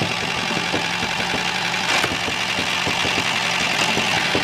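Small motor of a DIY mini model tractor running steadily, with a rapid rattle of small clicks.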